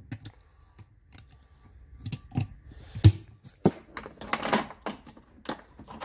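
Metal hand tools clicking and clinking as they are handled: a socket-bit extension in the hand, then chrome combination wrenches shifted in a plastic tool-case tray. A string of separate sharp clicks and knocks, busier in the second half.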